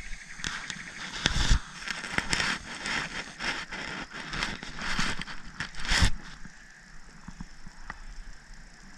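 Spinning reel being cranked to bring in a small fish, a run of irregular crackling clicks and rasps that stops about six seconds in.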